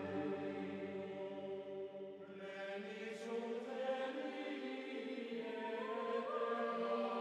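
Slow background music of sustained, choir-like chanting voices on long held notes, with a brighter chord about two and a half seconds in and a higher note joining near the end.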